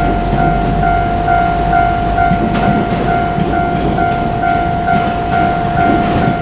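Japanese level crossing warning bell ringing steadily, about two strokes a second, over the rumble of a train running past with the clicking of wheels over rail joints.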